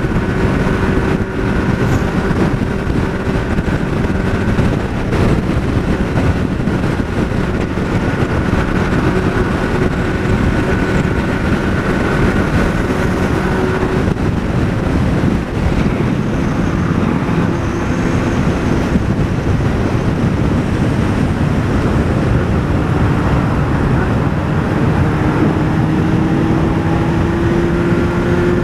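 Honda Hornet 600's inline-four engine running at a steady highway cruise under heavy wind rush. The engine note fades about halfway through and rises in pitch near the end as the bike picks up speed.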